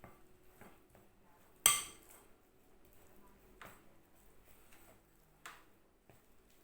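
A stirring utensil knocking against a mixing bowl while dough is mixed: one sharp ringing clink about two seconds in, then a couple of fainter knocks and soft scraping.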